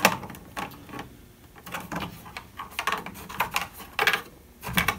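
Irregular clicks and knocks of hard objects being handled, a sharp knock first and then scattered taps and rattles.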